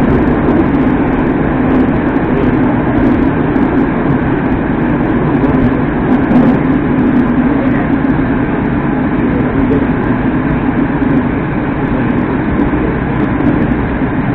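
Steady running noise of a Moscow Metro "Moskva 2019" train, heard inside the car as it travels at speed: a loud, even rumble of wheels on rails and the car's running gear.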